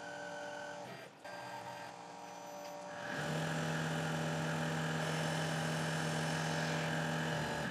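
Tormach 8L CNC lathe running with a steady machine whine while tapping a small brass part, with a brief dip about a second in. About three seconds in it turns louder, a strong steady hum over the hiss of coolant spray, as the brass part is cut off with the parting tool.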